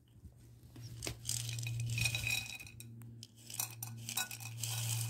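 Dry cat food kibble rattling and clinking as it is tipped out of a clear jar onto a plate, in uneven bursts from about a second in.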